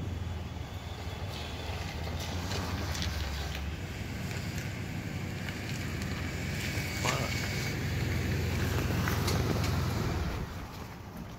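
Thunder rumbling low and steadily, building over several seconds and then dropping away about ten seconds in.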